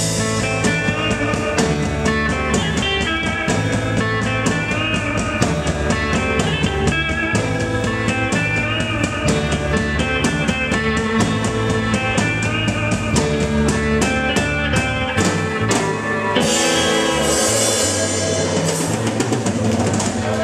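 Live beat-music cover band playing: electric guitars, bass and a drum kit keeping a steady beat, amplified through a PA. About three-quarters of the way through the bass drops away and a bright hiss rises above the guitars.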